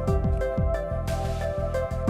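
Background music with a steady beat under held, sustained tones.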